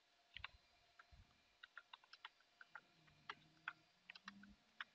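Faint, irregular keystrokes on a computer keyboard.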